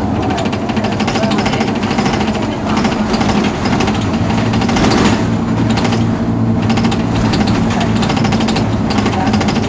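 Diesel engine of a stationary Mercedes-Benz Citaro G articulated city bus idling, a steady low hum with a fast, even clatter.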